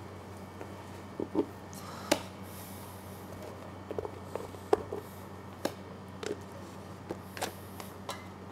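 Meringue being scooped by hand out of a stainless steel mixer bowl: soft squishes and about a dozen light, irregular knocks and taps of the steel bowl, over a steady low hum.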